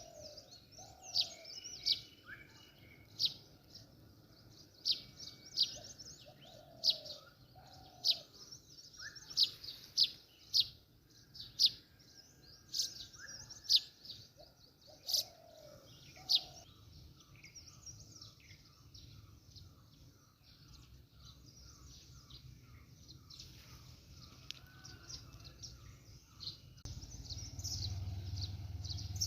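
Several birds chirping and singing: many short, sharp high chirps, some lower slurred whistles, and a quick run of short repeated notes about halfway through. A low rumble comes up near the end.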